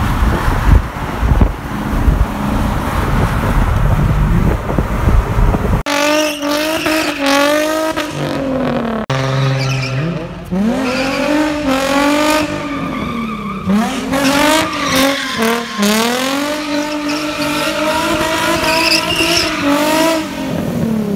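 Road and wind noise at highway speed from an open car window for the first few seconds. Then a Nissan 350Z's V6 revs up and falls back again and again as it drifts in circles, with its tyres squealing.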